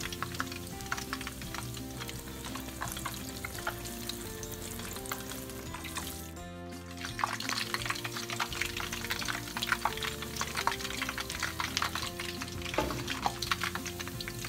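A corn-dough cheese empanada frying in shallow oil in a pan, with a steady dense crackle and sizzle of bubbling oil. Background music with sustained notes plays underneath. Both cut out briefly about six and a half seconds in.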